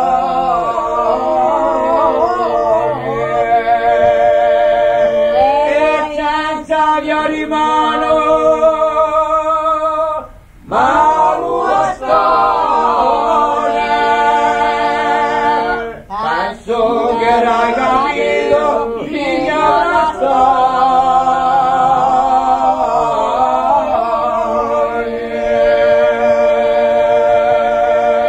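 Corsican song sung by a group of voices in harmony, with a short pause about ten seconds in.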